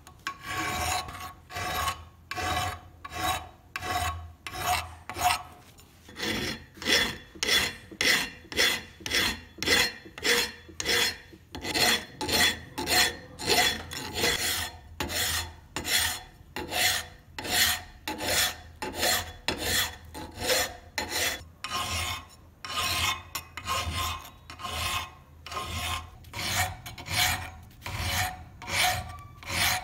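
Hand file rasping along the edge of a rusty forged steel C-clamp frame in even back-and-forth strokes, about two a second, a little slower in the first few seconds. It is smoothing the rusted edge down to bright metal.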